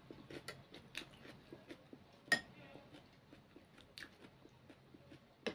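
A person eating noodle soup: chewing, with scattered clicks of a metal spoon against a ceramic bowl. The loudest clink comes a little over two seconds in, with another near the end.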